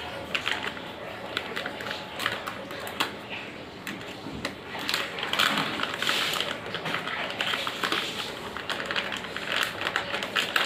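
Irregular plastic clicks, taps and rustling as a 24-volt switching power supply and its cable are handled and untangled by hand.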